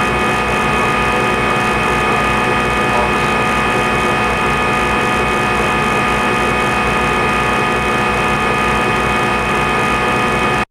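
CNC machine running a G-code program: a steady mechanical whine with several fixed tones over motor and drive noise, cutting off abruptly at the end.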